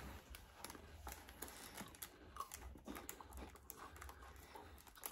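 Faint snack-eating noises: scattered small clicks and light rustling of a chocolate malt-stick mini donut being handled and eaten, over a low hum.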